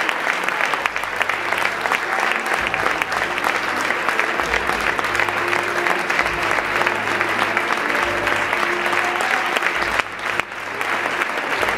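Theatre audience and dancers applauding, a dense, steady clapping with a brief dip about ten seconds in.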